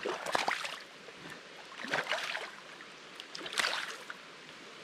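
Spawned-out chinook salmon splashing in shallow river water in three short bursts, about a second and a half apart, over the steady rush of the stream.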